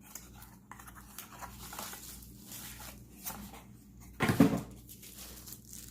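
Plastic packaging crinkling and tearing as a kitchen sauté tool is unwrapped, in irregular rustles, with one brief, louder sound about four seconds in.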